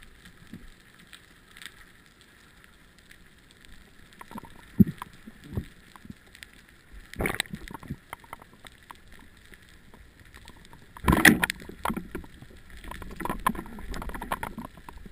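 Underwater sound picked up through a GoPro's housing while the diver swims: faint scattered ticking, then several short rushes of water and bubbling, the loudest about eleven seconds in.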